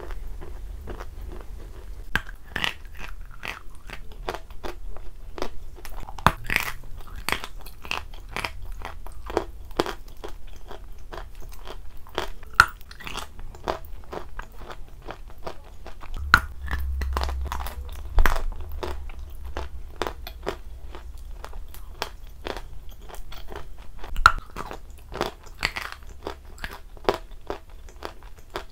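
Biting and chewing of white chalk coated in wet clay, close to a clip-on microphone: irregular crisp crunches several times a second, with a few sharper, louder bites.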